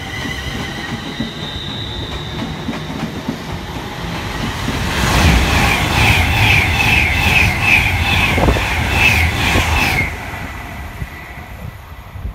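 An electric multiple unit pulls away with its traction motors whining in the first few seconds. Then an intercity express train passes through the station at speed: a loud rush with a regular clatter of wheels over the rail joints, about two or three beats a second, which cuts off as the last coach goes by about ten seconds in.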